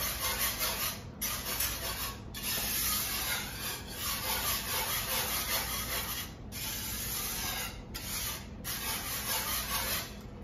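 Wire whisk scraping and rasping through a thick chickpea-flour roux in a cast iron skillet, a steady stirring noise broken by several brief pauses, as milk is worked in to break it down into a sauce.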